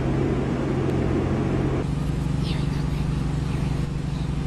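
A motor vehicle's engine running steadily, its note shifting slightly about two seconds in.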